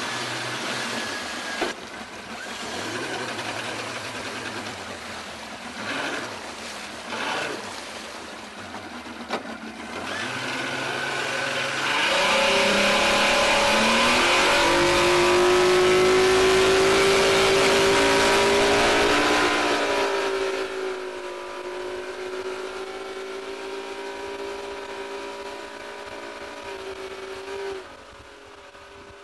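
Mercury outboard motor on a bass boat running at speed over the rush of wake and spray. About twelve seconds in, its pitch rises as it accelerates, then it holds steady. The sound drops in level about twenty seconds in.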